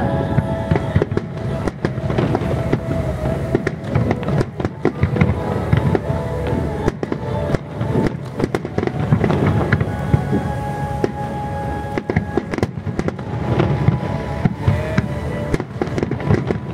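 Aerial firework shells bursting in quick succession, a dense, unbroken run of booms and crackles, with music playing underneath.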